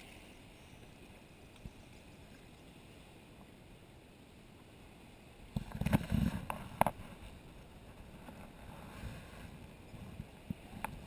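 Plastic sit-on-top kayak being paddled. At first there is only quiet water lapping. About halfway through comes a short burst of paddle splashing with two sharp knocks, and then lighter paddling splashes.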